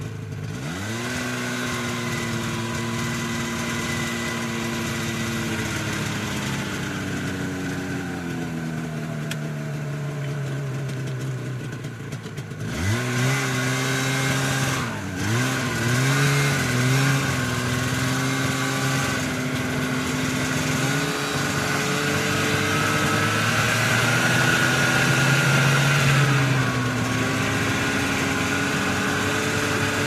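Snowmobile engine under way as it is ridden: the engine note climbs quickly, holds, then sinks slowly as the throttle eases. About halfway through it climbs sharply again, dips briefly, and runs on with small rises and falls.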